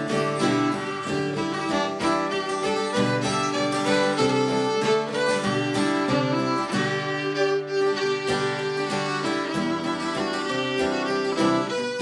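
Fiddle playing a folk tune in a run of quick bowed notes, with guitar accompaniment underneath.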